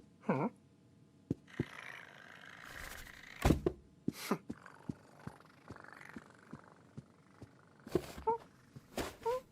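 Cartoon foley of a cat: a short mew, a stretch of rustling, a thump followed by a series of lighter taps and knocks, then two more short mews near the end.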